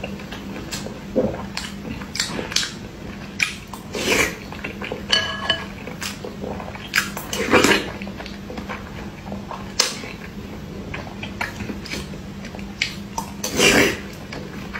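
Close-up eating sounds of someone chewing whole hard-boiled eggs: irregular wet chewing and mouth smacks, with a metal spoon clinking against the bowl, one clink ringing briefly about five seconds in. A faint steady low hum runs underneath.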